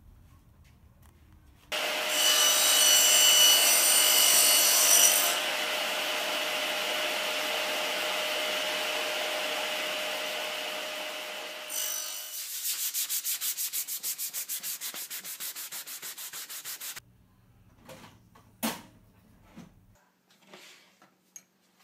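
A power tool working wood: about ten seconds of loud, steady grinding with a steady hum in it, starting about two seconds in. It gives way to evenly repeated rubbing strokes, about four a second, for about five seconds, then a few light knocks and clicks near the end.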